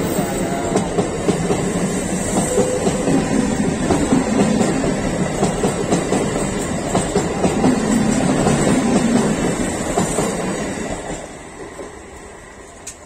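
MEDHA EMU local train's coaches running past at speed, wheels clattering over the rail joints with rapid sharp clicks. The noise dies away from about eleven seconds in as the last coach goes by.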